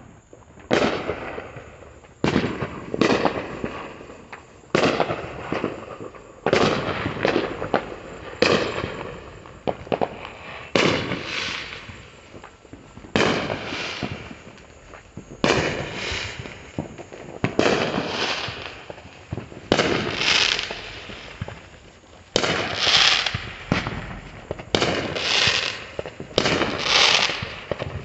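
Firework explosions going off in quick succession, about two dozen sharp bangs roughly a second apart, each fading away over a second or so, the loudest coming near the end.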